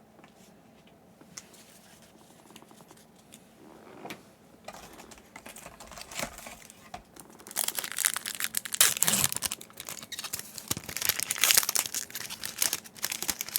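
Plastic foil wrapper of a Yu-Gi-Oh booster pack being handled and torn open, crinkling. It is faint and sparse at first, then dense and louder crinkling from about halfway through.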